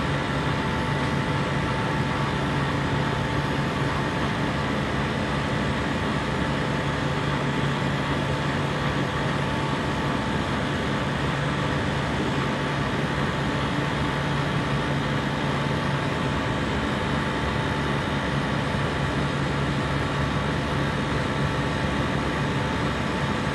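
A compressor running steadily: a constant mechanical hum with a low drone and a few steady higher tones.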